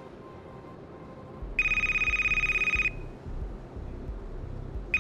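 A telephone ringing: one electronic trilling ring lasting just over a second, about a second and a half in, with the next ring starting right at the end, over a faint low hum.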